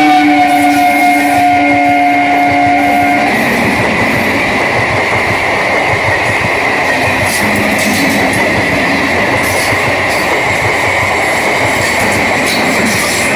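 Indian Railways suburban EMU passing close by. Its horn drops in pitch as the front goes past and cuts off about three seconds in. The wheels then rumble on over the track with a steady high whine and occasional clicks.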